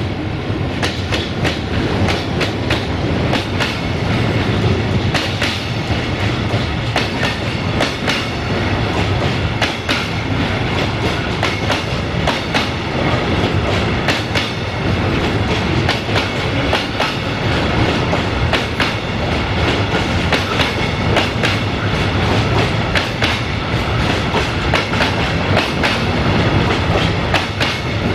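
Intermodal freight train rolling along, its wagon wheels clicking irregularly over rail joints over a steady low rumble.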